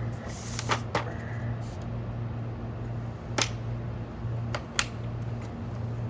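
Steady low machinery hum with four short, sharp knocks, two close together about a second in and two more later.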